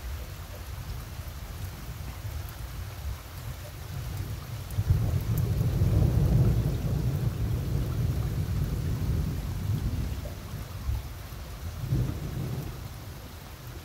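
Thunder rumbling: a deep rumble builds about five seconds in and dies away over several seconds, then a second, shorter rumble comes near the end, over steady rain.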